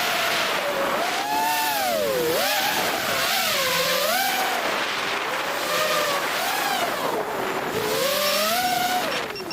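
FPV quadcopter's motors and propellers whining, the pitch rising and falling again and again with the throttle, over a steady hiss. The whine drops briefly near the end.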